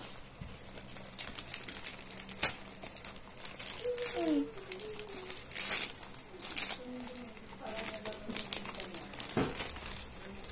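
Thin plastic courier mailer bag crinkling and rustling as it is handled open and the packaged item is drawn out, with irregular sharper crackles, a few of them louder around the middle.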